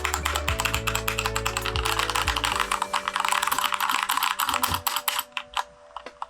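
Fast typing on a Keychron K2 mechanical keyboard fitted with unlubed Gateron switches: a dense run of keystrokes that thins to a few scattered presses about five seconds in.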